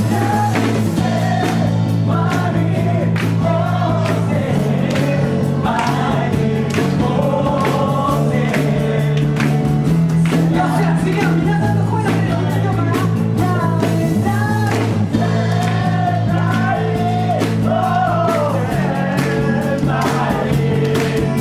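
Live band music: a man sings a melody over acoustic guitar and low chords that change every couple of seconds, with a steady beat.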